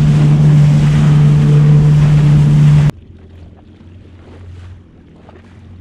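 Jet ski engine running steadily at speed under a heavy rush of wind and spray. About three seconds in it cuts off abruptly to a much quieter low hum.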